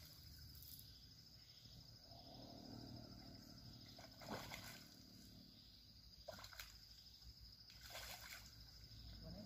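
Near silence with faint, scattered splashing from a hooked carp thrashing at the water surface.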